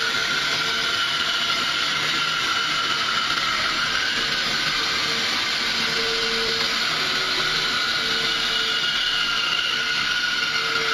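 Bandsaw running steadily, its blade cutting through a thick block of wood.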